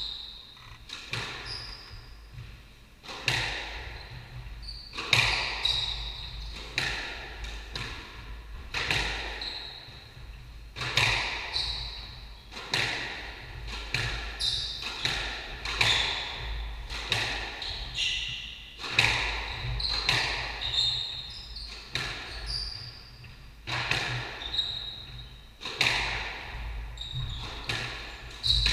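A squash rally: the ball is struck by rackets and smacks off the walls every second or two, each hit echoing around the court. Short high squeaks of shoes on the wooden floor come between the hits.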